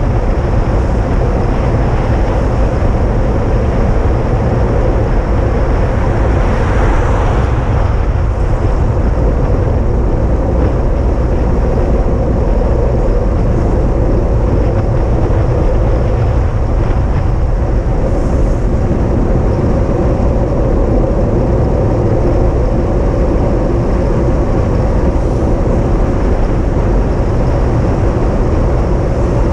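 Steady loud rumble of a moving vehicle, with a brief swell of hiss about seven seconds in.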